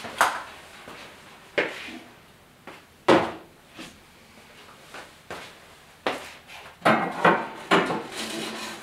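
Metal parts being handled: separate knocks and clunks, loudest a little after three seconds in, then a quick run of metal clatter and rattling in the last few seconds as a gas grill's metal cooking grates are set into the firebox.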